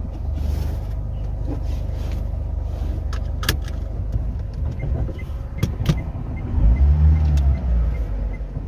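Car driving in the rain: steady engine and road rumble with scattered sharp taps, and the engine note rising and falling again about seven seconds in.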